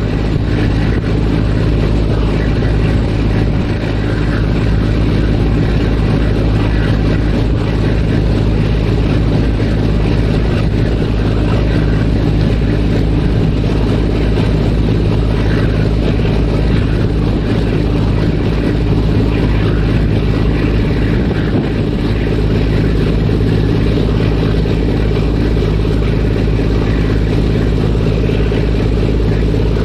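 A ferry's engines running steadily: a constant low hum under a broad rushing noise, with no change in pitch or level.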